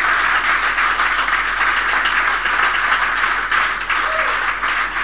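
Audience clapping steadily in applause.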